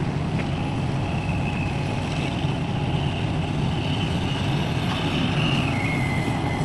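Heavy diesel engines of an excavator and dump truck running steadily at a work site, a deep even rumble. A faint high whine rides over it from about a second in and steps down in pitch near the end.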